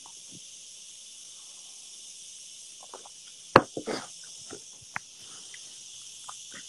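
Steady high hiss with scattered small clicks and one sharper knock about three and a half seconds in, the sound of a handheld phone being moved and handled close to its microphone.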